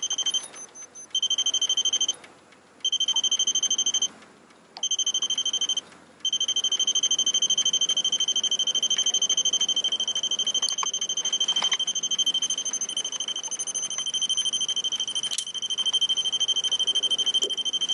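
An electronic beeper sounding a high, very fast-pulsing tone. It comes in four spells of about a second each with short gaps, then sounds without a break from about six seconds in.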